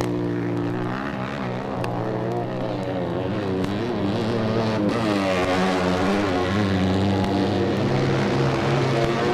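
An engine droning with a steady pitch, which wavers up and down in the middle and then settles again.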